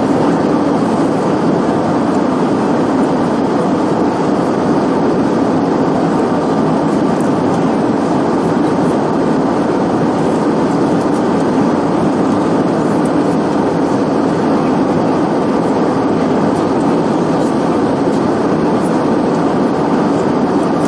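Steady drone of an Airbus A320-214's cabin in cruise: engine and airflow noise, heard inside the passenger cabin, even and unchanging.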